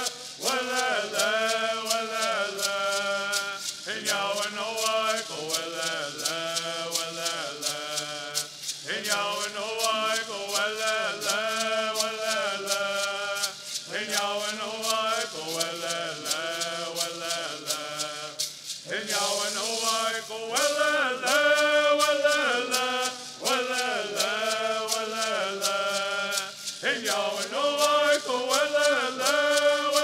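A group of men singing a Southern California Native American bird song in unison, shaking gourd rattles in a steady rhythm. The song comes in repeated chanted phrases with short breaks between them.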